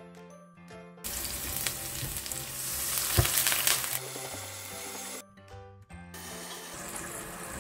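Crushed garlic and sliced green chillies sizzling in hot olive oil in a nonstick wok. The sizzle starts abruptly about a second in, with a single sharp knock about three seconds in. It drops out briefly and comes back fainter as oyster sauce goes into the pan. Background music plays throughout.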